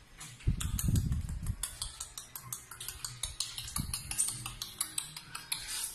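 A Maltese–Shih Tzu mix puppy's claws clicking rapidly on a tile floor as it runs. A loud, low muffled rumble starts about half a second in and lasts about a second.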